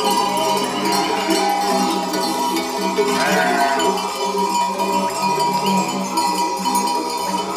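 Background music with steady jingling, and a sheep bleating once about three seconds in.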